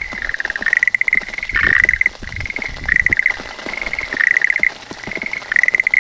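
Schlegel's green tree frogs calling: short pulsed trills about half a second long, repeated throughout with hardly a gap, louder calls alternating with fainter ones.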